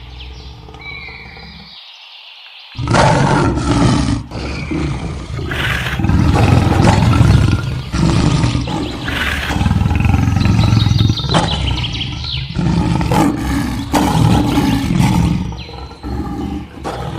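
Lion roaring and growling in a series of loud roars, starting abruptly about three seconds in after a quiet opening.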